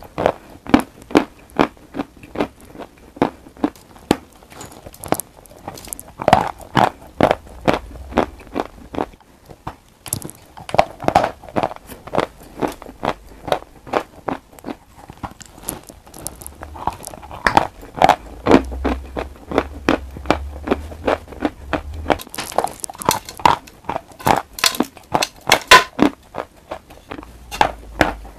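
Biting and chewing a sawn chalk bar with a brown paste topping, close to the microphone: sharp, dry crunches in quick runs, with short lulls between bites.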